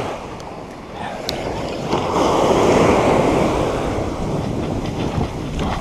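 Surf breaking and washing up on a sandy beach, swelling about two seconds in, with wind buffeting the microphone.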